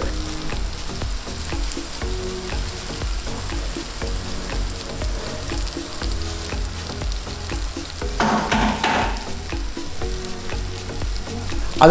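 Shallots, tomato and spice powders frying in hot coconut oil in an uruli, a steady sizzle that grows briefly louder about eight seconds in.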